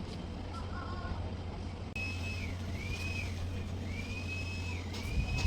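Electric buffing motor running with a steady low hum. From about two seconds in, a high squeak repeats roughly once a second, and there is a short knock near the end.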